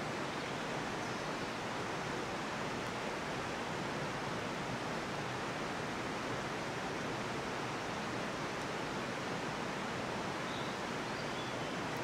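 Steady, even rushing noise that holds level throughout, with no distinct events.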